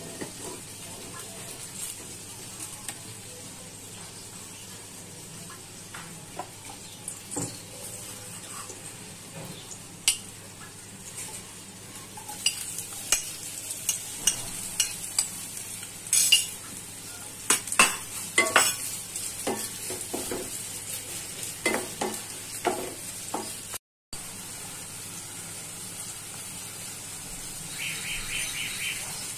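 Sliced onions frying in hot oil in a nonstick pan with a steady sizzle, while a wooden spatula stirs them with many sharp knocks and scrapes against the pan through the middle stretch.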